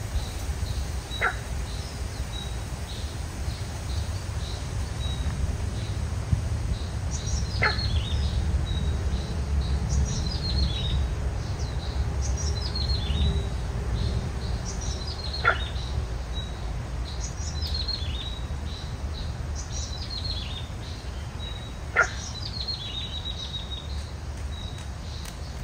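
A bird calling over and over, each call a quick falling run of notes, repeating about every two seconds from a quarter of the way in. Underneath is a steady low rumble, with a faint high steady tone and four sharp clicks spread through.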